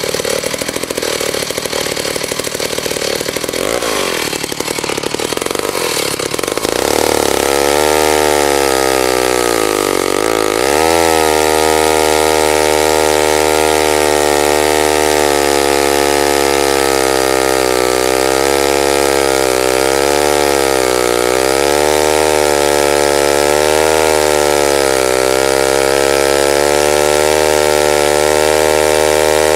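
McCulloch Mac 15 two-stroke chainsaw running at full throttle as it cuts through a log. The first several seconds are rougher and noisier; from about seven seconds in the engine settles into a strong, steady note that wavers slightly in pitch under load. Its pitch dips sharply and recovers about ten seconds in.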